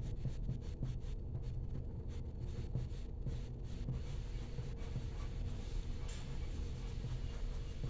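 Colored pencil scratching on paper in short, quick strokes, over a steady low hum.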